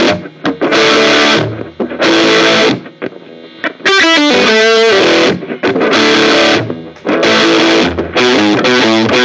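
Electric guitar played through a Behringer V-Tone GM108 15-watt practice amp on a distorted setting: loud strummed chords, each held about a second, with short breaks between them and a wavering passage in the middle.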